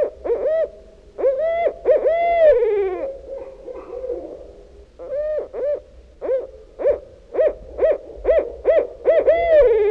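Barred owl hooting: a series of rich, pitched hoots, with a longer held note about two seconds in. A rapid run of hoots follows, ending in a drawn-out note that slides down in pitch.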